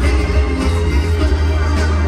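Loud live band music at an arena concert, with a heavy, steady bass.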